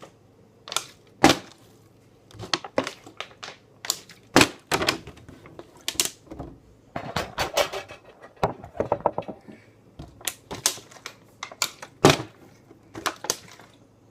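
Irregular sharp knocks and thuds, a couple dozen in all, of a small object being flipped and landing on hard surfaces in a small room.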